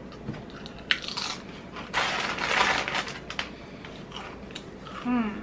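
Cool Ranch tortilla chip crunching as it is bitten and chewed. There is one sharp crack about a second in, then a loud stretch of crunching from about two to three seconds in.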